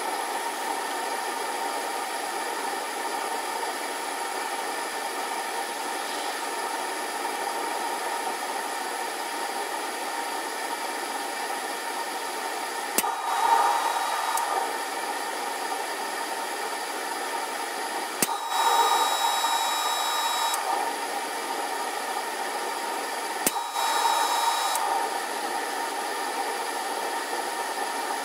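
PID-controlled forge running with a steady noise, sped up four times. Three times a click is followed by a louder stretch of a second or two, as the controller's output switches on to add heat and then drops out again.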